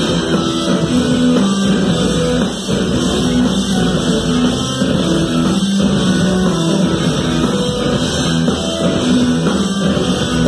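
Live rock band playing at full volume: drum kit, electric guitar, bass and synthesizer together in a driving, steady groove, with no singing heard.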